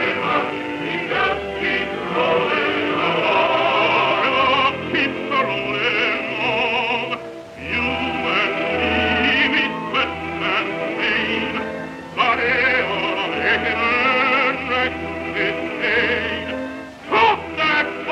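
A baritone man singing a slow song with strong vibrato over orchestral accompaniment, on an early sound-film recording.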